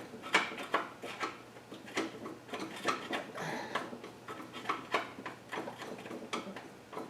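Hand tools and metal engine parts clicking and knocking together in irregular short taps, from work on the front of the engine.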